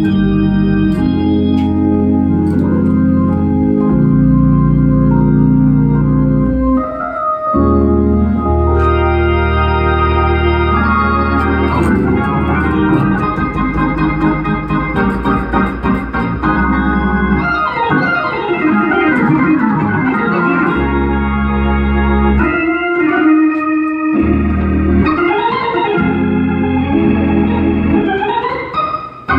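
Hammond organ played in gospel style: held full chords over deep bass notes, moving into fast runs and sweeping glissandos in the second half, with brief drops out of the bass about seven seconds in and again past the twenty-second mark.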